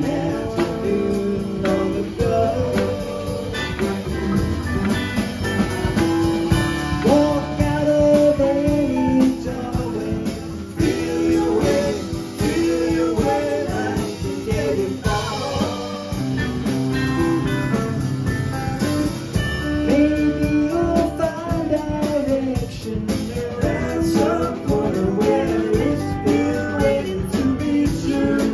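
A live rock band playing: electric guitars, keyboards, bass and drum kit, with a sung vocal line over the top.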